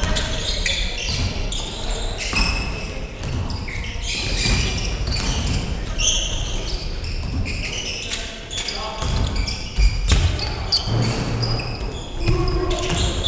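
Basketball game on a wooden gym floor: the ball bounces during dribbling, sneakers squeak in many short high chirps, and players call out.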